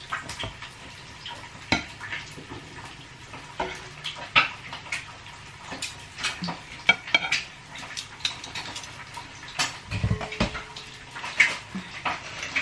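Metal tongs clinking and tapping against a ceramic plate as grilled steaks are laid on it, among many irregular small clicks and crackles. A brief low thump about ten seconds in.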